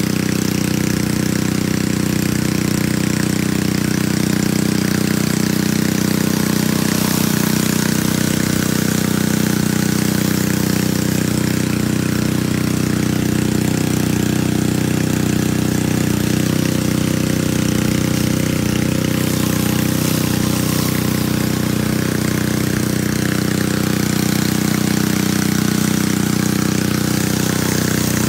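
Pressure washer engine running steadily at one pitch, under the even hiss of water spraying from a 15-inch rotary surface cleaner working over a concrete sidewalk.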